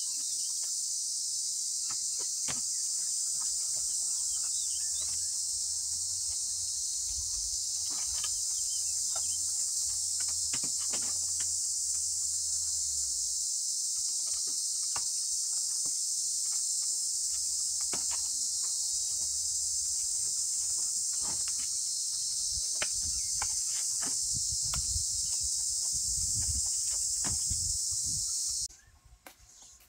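Steady, high-pitched drone of insects, with scattered light clicks and knocks beneath it; the drone cuts off suddenly near the end.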